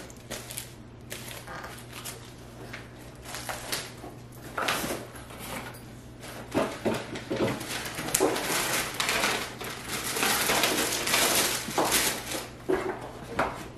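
Plastic packaging and paper rustling and crinkling as packed items are handled and pulled out of a cardboard box. The crinkling comes in irregular bursts of crackle, sparse at first and busier in the second half.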